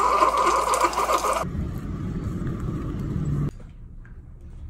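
Keurig single-cup coffee maker brewing, its pump humming and hot water hissing into the mug, until it cuts off about a second and a half in. A low rumble follows for about two seconds, then only faint room noise.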